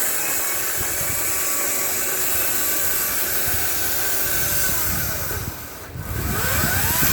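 Ryobi 40-volt HP brushless battery chainsaw running with a steady whine of motor and chain, its pitch gliding down and up. It eases off briefly about six seconds in and spins back up.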